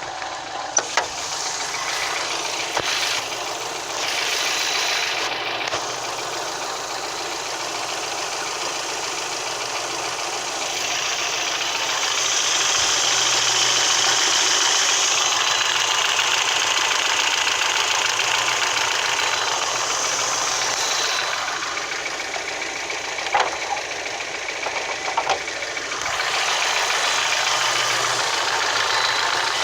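Lada Priora's 1.6-litre 16-valve VAZ-21126 engine running with a knock, which the owner cannot place between a piston knock and a noisy hydraulic lifter. It gets louder for several seconds in the middle, and a few sharper knocks stand out near the end.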